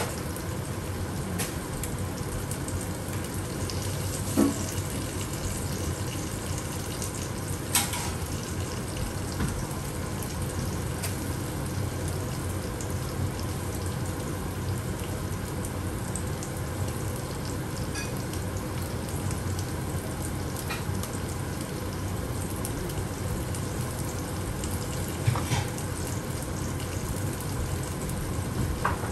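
Sea bass fillets frying in oil in a pan, a steady sizzle with a few sharp pops of spitting oil.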